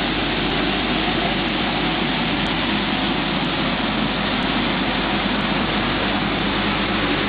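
Pet food production line machinery running steadily: a loud, even noise with a low hum underneath, from the motors and fans of the kibble conveyor and dryer.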